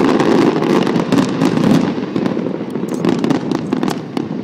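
Aerial fireworks bursting in quick succession: many sharp bangs and crackles over a continuous low rumble. The bursts are loudest in the first two seconds, then ease off.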